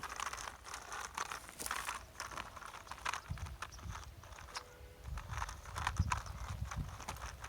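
Plastic toy truck being rolled and handled, giving irregular light clicks and knocks, with a low rumble from about three seconds in.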